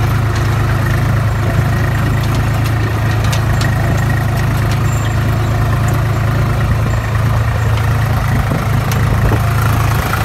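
Farm tractor's diesel engine running steadily at an even pace, heard from on the tractor, with a few faint clicks and rattles over it.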